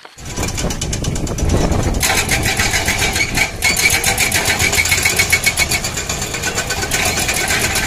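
Hydraulic breaker on a Komatsu PC210 excavator hammering rubble: a rapid, steady run of blows over the running diesel engine, louder from about two seconds in.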